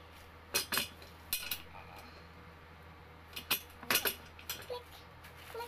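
Office chair parts being pressed and knocked together during assembly: a handful of sharp clicks and knocks in small clusters, as a part is pushed in until it clicks into place.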